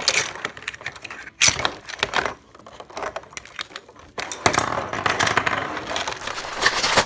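Hard plastic toy parts clicking and knocking as they are handled, with a few sharp clicks in the first half. From about four and a half seconds in there is a denser run of rustling and clicking.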